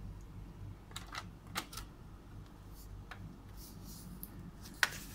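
Light clicks and taps of a laptop's bottom cover being handled and fitted back onto the chassis, with a sharper snap near the end.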